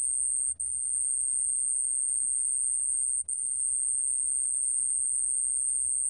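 좀방울벌레, a small Korean cricket, singing at 29 °C: a continuous, even, high-pitched trill that breaks off for an instant twice, about half a second in and a little after three seconds in.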